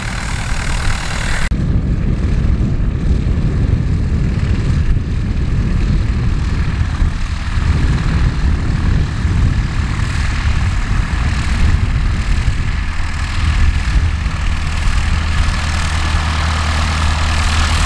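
Light propeller aircraft engine running steadily with a low drone. The sound changes abruptly about a second and a half in.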